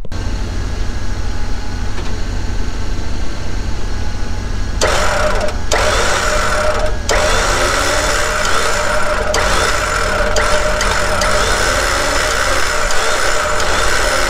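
Toyota 4Runner engine idling, and from about five seconds in the Warn 8274 winch's motor and gears whining as it reels the new synthetic rope in under tension to pre-tension it. The winch stops and restarts twice in quick succession, then runs steadily.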